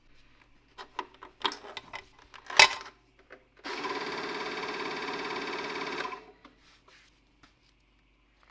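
Clicks and knocks from handling a Kodak Instamatic movie projector, one sharp knock the loudest. About halfway through, its motor runs with a steady whirr for about two and a half seconds, then stops suddenly.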